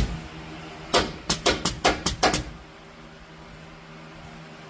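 Staple gun firing about eight staples in quick succession, sharp snapping clicks close together, fastening vinyl headliner material to the roof bows.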